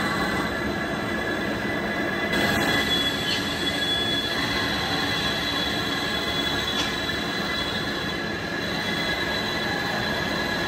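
An old W&B vertical turret lathe cutting metal: steady machining noise with a high, steady squeal from the tool, and a few faint clicks.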